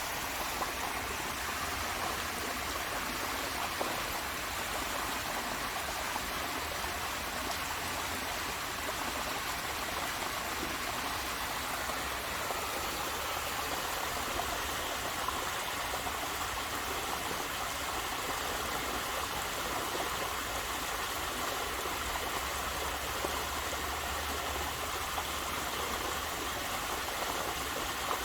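Waterfall: water falling and splashing in a steady rush.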